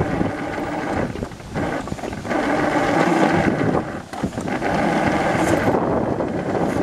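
Wiegand summer bobsled running down its steel trough track: the sled's wheels rumble steadily along the channel with a ringing hum, mixed with wind on the microphone. The level dips briefly a few times, about one and a half, two and four seconds in.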